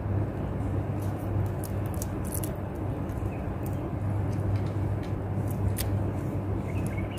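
Faint crackles and clicks of cooked crab shell being broken and picked apart by hand, over a steady low hum and rumble of background noise.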